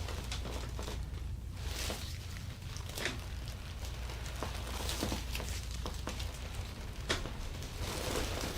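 Hands-on massage: soft rubbing of hands over skin and cloth, with a few light clicks or taps scattered through, over a steady low hum.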